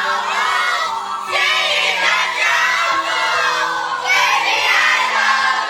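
A crowd singing along together over a song's backing music, many voices blending into one loud chorus.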